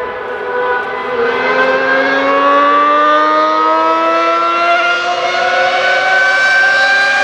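A siren wailing loudly: a steady tone that starts rising slowly in pitch about a second in and levels off near the end.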